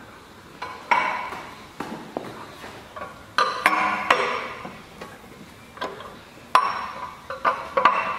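Irregular metallic clanks as a steel pipe lineup clamp is fitted and tightened with a wrench on a steel pipe: about ten sharp knocks, each ringing briefly.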